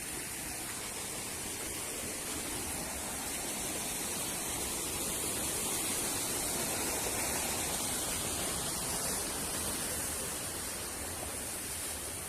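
Steady rush of flowing water from a small forest waterfall, an even hiss that swells a little midway and eases again.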